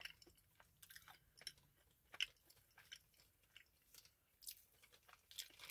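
A person chewing a soft red slate pencil (baked edible clay) with faint, irregular crisp crunches.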